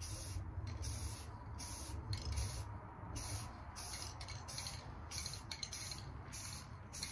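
Aerosol spray can of primer spraying in short, quick strokes, a brief hiss with each stroke, about two a second.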